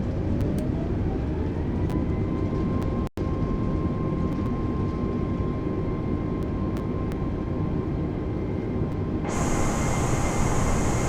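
Airliner jet engines with a steady low rumble and an engine whine that rises in pitch over the first couple of seconds and then holds steady. A loud hissing rush joins suddenly near the end. The sound cuts out for an instant about three seconds in.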